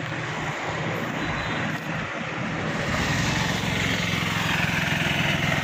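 John Deere tractor's diesel engine running with a steady low drone as it hauls two loaded trailers along the road, with traffic noise growing louder in the second half.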